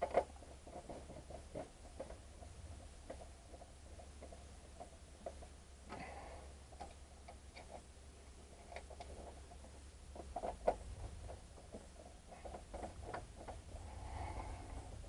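Faint, scattered clicks and small scrapes of a screwdriver and wire ends working the screw terminals of a plastic PWM solar charge controller as the battery leads are connected.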